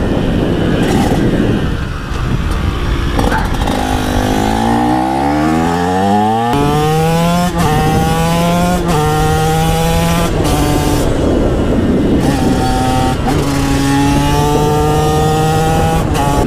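TM SMR 125 two-stroke supermoto engine with an HGS exhaust, ridden at speed: the revs climb steadily, drop sharply at a gear change about six and a half seconds in, then hold fairly level with smaller shifts in pitch. Wind buffets the microphone underneath.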